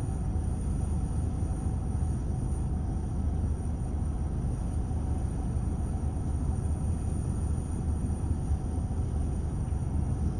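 Steady low rumble of road traffic, cars idling and creeping forward in a queue.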